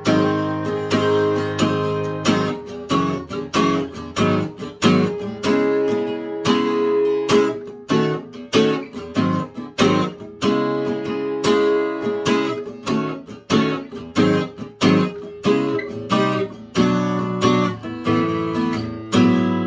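Eastman E20OOSS/V-SB acoustic guitar played alone, chords strummed in a steady rhythm of about two strokes a second.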